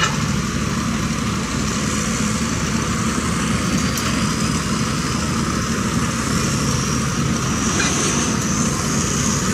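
Farm tractor's diesel engine under heavy load, pulling a weight-transfer sled down a tractor-pull track, running steady and loud. A faint high whine rises slowly through most of it.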